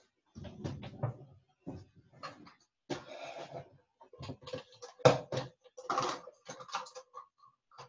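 Kitchen handling noises: irregular knocks and clatter of things being picked up and set down, the loudest knock about five seconds in, with a wavering voice-like tone through the second half.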